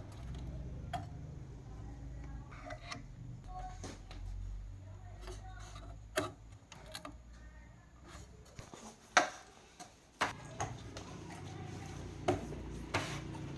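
Scattered sharp clicks and taps over a low steady hum, the loudest clicks about two-thirds of the way through.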